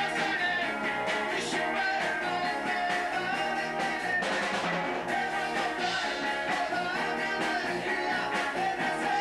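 Rock band playing live: two electric guitars, electric bass and drum kit, with a steady beat throughout.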